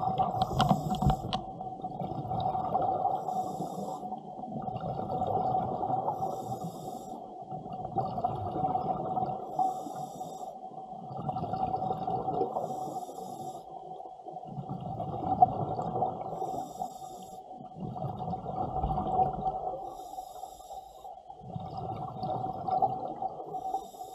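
Scuba diver breathing underwater through a regulator: a short hiss on each inhale and a bubbling rush of exhaled bubbles, about every three seconds, over a steady hum.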